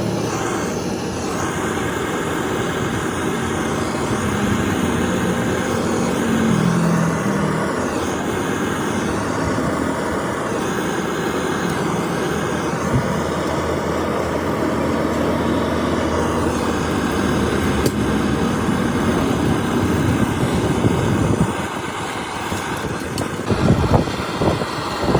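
A steady mechanical running noise from an engine or motor, with a few sharp knocks near the end.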